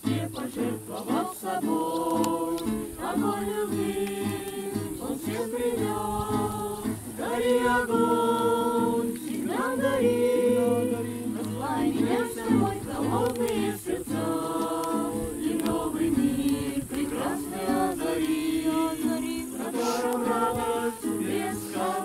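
A mixed group of men's and women's voices singing a song together, accompanied by an acoustic guitar.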